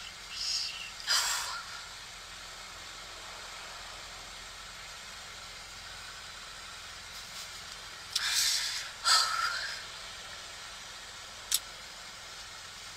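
A woman breathing hard while upset: a few sharp exhales near the start and two more about eight and nine seconds in, over a faint steady hiss, with a single click near the end.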